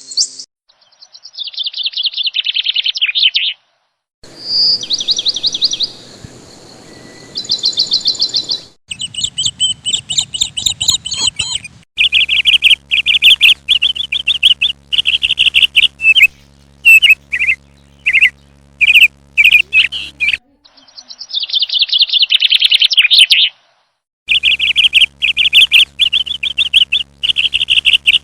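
Small birds chirping in rapid, high-pitched runs of quick notes, in several back-to-back clips that cut in and out abruptly; under some of them runs a steady low hum.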